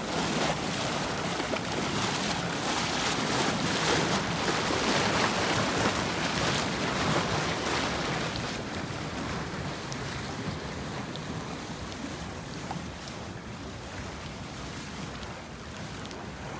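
Whirlpool air jets churning pool water: a steady rushing and bubbling, growing fainter after about eight seconds.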